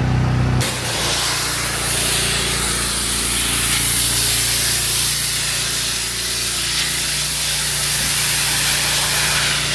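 Pressure washer's engine running steadily. About half a second in, the high-pressure water spray starts with a loud, steady hiss as water jets onto the ground.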